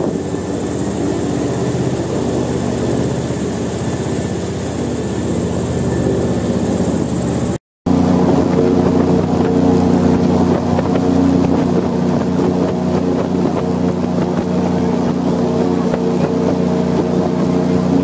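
Airboat's engine and large air propeller running at cruising speed: a loud, steady drone. It breaks off for an instant about eight seconds in and comes back stronger and steadier.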